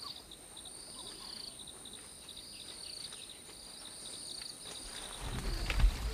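Insects calling: a steady high whine under short, pulsing chirps repeated every second or so. From about five seconds in, a low rumble comes up, with a thump near the end.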